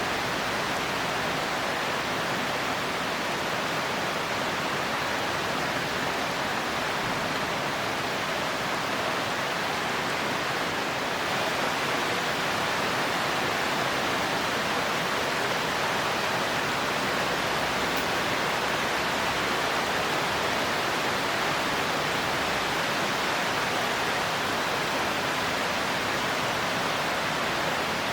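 Heavy rain falling in a steady, even hiss, a little louder from about eleven seconds in, with no thunder.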